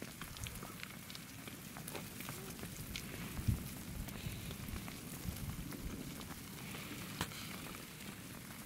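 Advancing lava flow front crackling and ticking as its cooling crust cracks and crusted blocks shift, over a low rumble. A louder knock comes about three and a half seconds in and a sharp crack a little after seven seconds.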